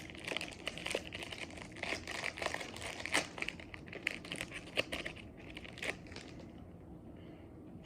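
Foil Pokémon booster pack wrapper being torn open and crinkled by hand, a dense run of irregular crackles that dies away near the end.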